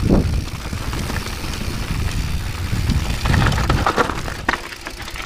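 Rocky Mountain 790 MSL mountain bike riding down a dry, rocky dirt trail: a steady low rumble of tyres on loose dirt and gravel, with a cluster of rattles and clicks as the bike hits stones about three to four and a half seconds in.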